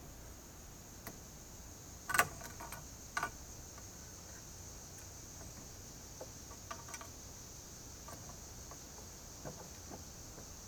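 Scattered metal clinks and clicks of a wrench and pliers on a nut and threaded metal axle, the two loudest about two and three seconds in. A steady high drone of insects runs underneath.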